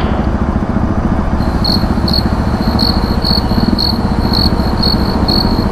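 Engines idling with a steady low rumble, a motorcycle stopped close behind a bus. About a second and a half in, a high-pitched electronic beeping starts, about three short beeps a second.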